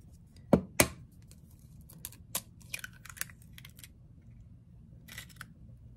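A hen's egg cracked open with two sharp taps, followed by a scatter of light clicks and crackles of the shell being pulled apart over the bowl.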